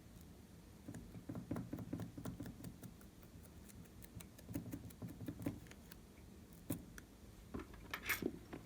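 Glossy slime being worked by hand, giving soft sticky clicks and pops in irregular clusters, with a few sharper pops near the end.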